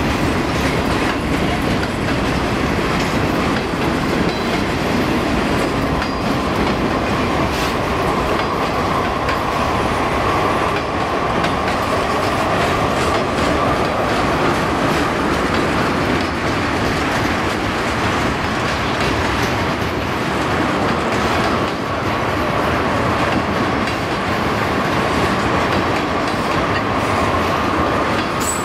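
Freight train cars rolling past, with steel wheels clicking over the rail joints in a steady rumble. A thin, steady wheel squeal comes in about a third of the way through.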